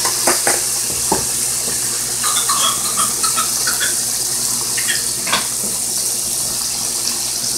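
Chicken pieces deep frying in a pot of hot oil, a steady bubbling sizzle, with a few sharp clicks in the first second and once more about five seconds in.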